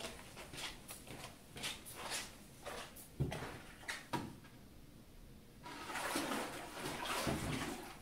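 Water splashing and sloshing in a glass wave tank as a wooden paddle is lowered in and pushed through the water to make a wave. Short splashy ticks, two knocks about three and four seconds in, then a denser rush of churning water from about six seconds.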